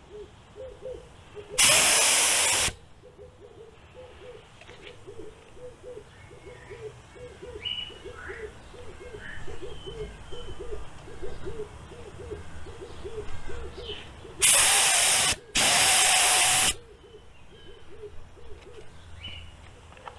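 Paint spray gun triggered in short bursts of hissing air while its spray pattern is being set: one burst about a second and a half in, then two back to back near the end. Between them a soft low note repeats about twice a second, with faint chirps higher up.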